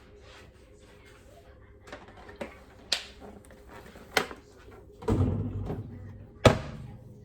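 A series of household knocks and clatters: a few sharp knocks, a heavier thud about five seconds in that dies away over about a second, and the loudest sharp bang near the end.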